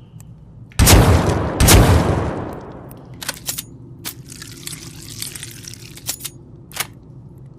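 Sawed-off shotgun sound effect: two loud blasts a little under a second apart, each fading out in a long rumbling tail, followed by a few sharp clicks.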